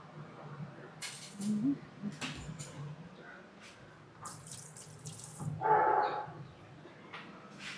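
Kitchen clinks and scraping with a short run of water, then a dog barks once about six seconds in, the loudest sound.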